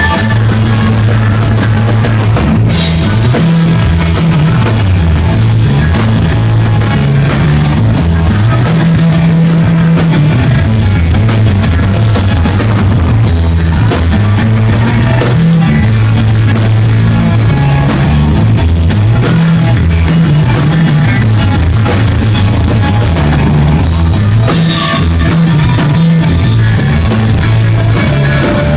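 Rock band playing live at full volume: drum kit, a moving bass line and electric guitar.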